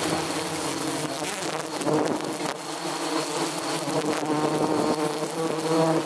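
A swarm of wild honeybees buzzing in a dense, steady hum.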